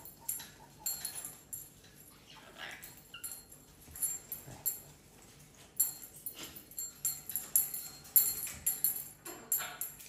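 Pet parrots making soft whining, chattering calls in short irregular bursts, mixed with quick clicks.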